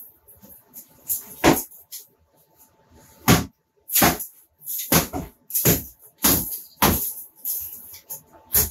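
Demolition of a basement ceiling: a hand tool striking and tearing at the ceiling, with debris crashing down, about eight sharp hits at uneven intervals starting a second and a half in.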